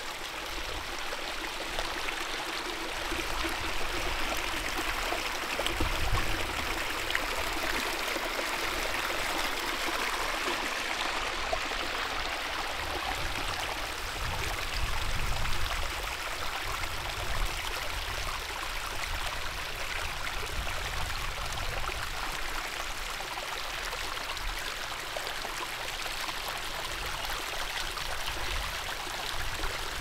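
Moorland brook running over rocks: a steady rush of flowing water, with a few short low bumps here and there.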